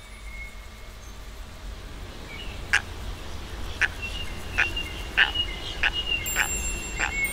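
A bird calling in short, sharp notes, repeated about once a second, starting about three seconds in. A thin, steady high tone and a low rumble run underneath.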